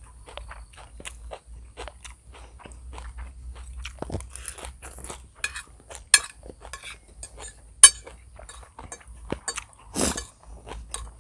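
Close-miked eating: chewing and crunching bites, with occasional clinks of cutlery against a dish and a few louder sharp clicks in the second half.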